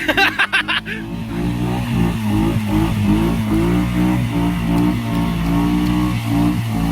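ATV engine revving in uneven surges, its pitch stepping up and down as the throttle is worked while riding through mud. A rapid stuttering burst comes in the first second.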